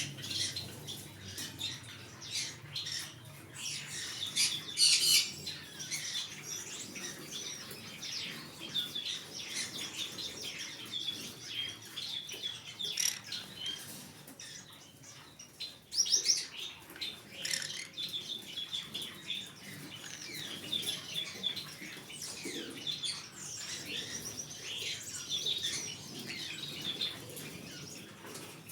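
Green-cheeked conure chirping and chattering in quick, short, high-pitched notes, with louder calls about five seconds and sixteen seconds in.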